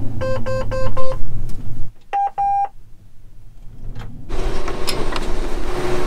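John Deere S670 combine cab monitor alarm beeping: four short beeps about a second in over the low hum of the running combine, then two higher beeps. It is the warning that the cleaning fan is not running, caused by the cleaning fan belt coming off. A steady rushing noise takes over from about four seconds in.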